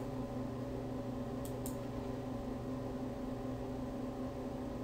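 Two quick computer mouse clicks about a second and a half in, over a steady low electrical hum.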